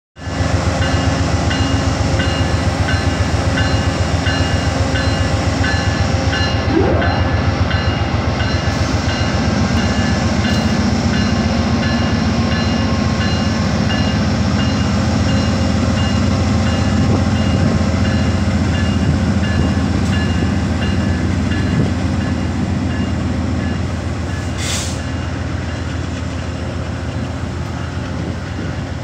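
GE P42DC diesel-electric locomotive pulling a passenger train away from a standstill, its diesel engine's low rumble loud and steady, working harder from about nine seconds in. The sound eases off slowly near the end as the locomotive draws away.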